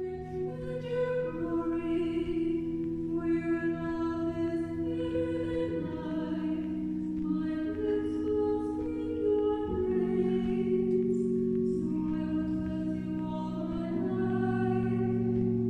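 Choral music: voices singing slow, long-held chords that change every second or two.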